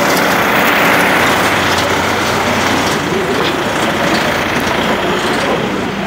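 Steady vehicle engine and road-traffic noise, loudest in the first half and easing slightly toward the end.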